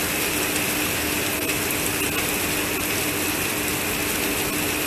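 Heavy rain mixed with some hail pouring down in a steady, dense hiss, with a faint steady hum underneath.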